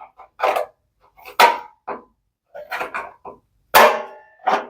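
Drum lifter locks on an LG front-loading washing machine drum being pushed and snapped into place: a series of sharp clicks and knocks, about nine in a few seconds.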